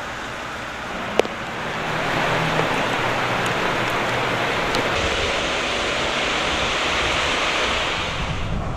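Steady hiss of rain on a wet street. It swells about two seconds in, holds, and eases near the end, with a single sharp click about a second in.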